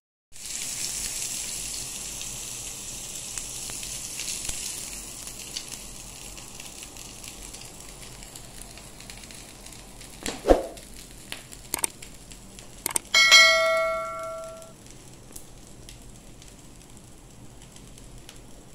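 Sizzling hiss of hot grilled chicken kebabs, fading away over the first several seconds. About ten seconds in comes a knock and a few clicks, then a single bell-like ring that lasts about a second and a half and is the loudest sound.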